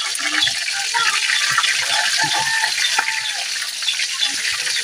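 Fish sizzling and crackling as it fries in hot oil in a metal wok, while a metal spatula turns it in the pan. There is a sharp knock about three seconds in.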